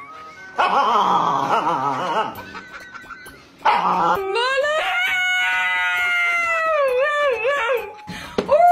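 Huskies vocalizing: a wavering, warbling "talking" call, then a long drawn-out howl that wobbles in pitch near its end, with another howl starting just before the end.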